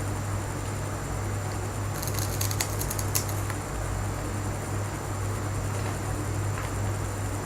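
Steady low room hum, with a short burst of crisp crackling about two seconds in that lasts around a second and a half.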